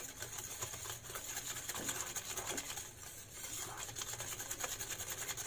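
Wire whisk beating eggs and sugar in a glass bowl: a rapid, steady patter of the wires clicking against the glass.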